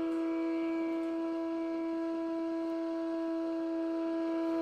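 A single long instrumental note with a reedy, wind-like sound, held at one steady pitch without a break.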